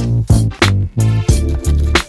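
Background music with a funky groove: a steady drum beat with bass and chords.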